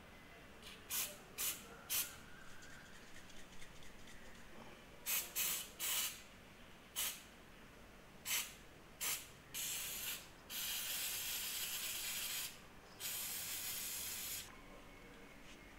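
Aerosol choke and carb cleaner sprayed onto engine oil strainers to clean them: a series of short hissing spurts, then three longer sprays of one to two seconds each near the end.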